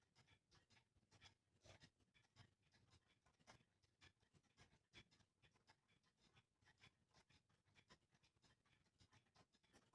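Near silence, with faint light clicks and scratches at irregular intervals.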